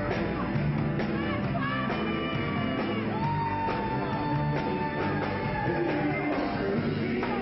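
Live rock band playing a song: drum kit with cymbals, guitars and a singing voice, with one long held note through the middle.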